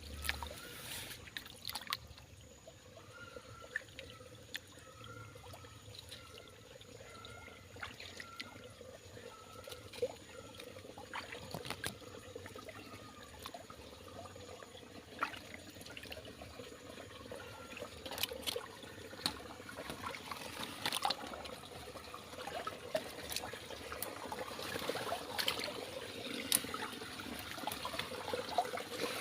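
Small stream trickling, with scattered sharp clicks. For the first ten seconds or so a short, high, arched call repeats about once every 0.7 seconds, the call of some small animal.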